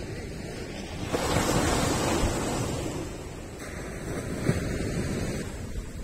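Ocean waves breaking on a sandy beach: a wave crashes about a second in and its foam hisses up the sand, then a second, smaller wash follows near the middle, over a steady low rumble.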